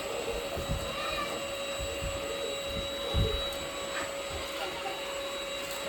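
INSE cordless stick vacuum running steadily with a constant whine, with a few low thumps as it is moved over the floor, the loudest a little over three seconds in.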